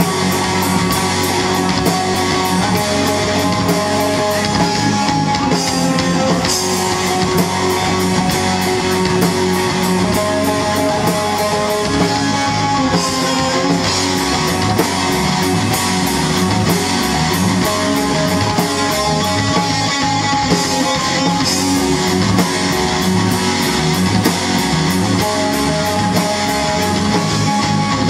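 Live rock band playing an instrumental passage: two electric guitars, electric bass and a drum kit keeping a steady beat, with no vocals.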